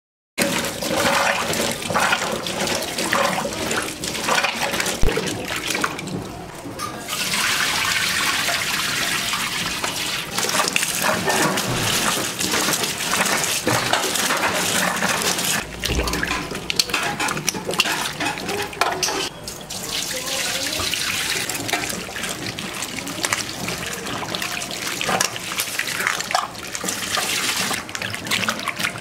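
Water running and splashing, with small knocks and clatters of handling mixed in.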